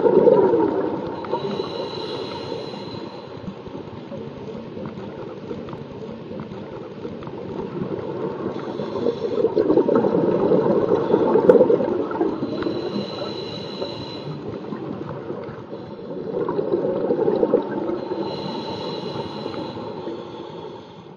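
A scuba diver breathing through a regulator underwater: bursts of exhaled bubbles that swell and fade, alternating with hissing inhalations that carry a faint whistle. There are about three breaths.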